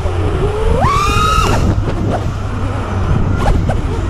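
FPV quadcopter's brushless motors whining, the pitch sweeping up and down with the throttle; about a second in the whine rises sharply, holds briefly and falls away, over a steady low rumble.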